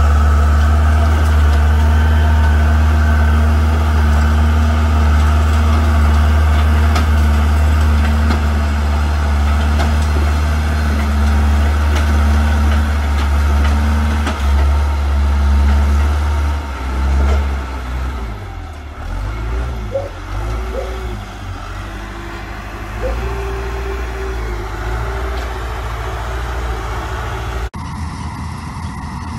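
Caterpillar 910 wheel loader's diesel engine running on a silage pit, a loud steady low drone. About halfway through the engine note drops and goes uneven, with a few brief rising whines. The sound changes abruptly near the end.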